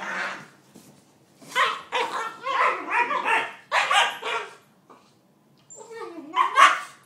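Boxer and Weimaraner puppies barking and yipping in quick bursts. There is a short pause just after the middle, then one longer bark near the end that dips and rises in pitch.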